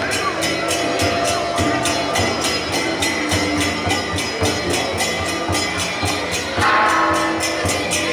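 Temple procession music: cymbals beaten in a fast, steady rhythm of about five or six strokes a second over drums, with held melody tones. It swells louder about two-thirds of the way in.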